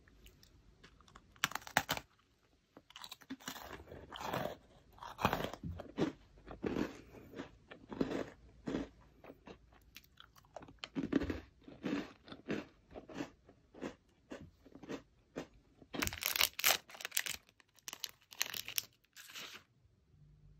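Butter biscuit being bitten and chewed: a sharp crunch about two seconds in, then steady crunchy chewing about twice a second, with a louder, crisper burst of crunching near the end.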